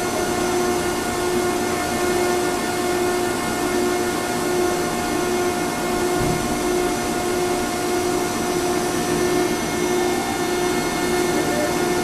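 Baler running steadily: a continuous machine drone with a pulsing mid-pitched hum, and a brief low thump about six seconds in.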